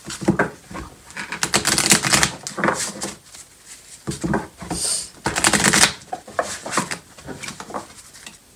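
A deck of oracle cards being shuffled by hand: quick runs of crisp clicks and rustles in bursts, busiest in the first half and thinning out near the end.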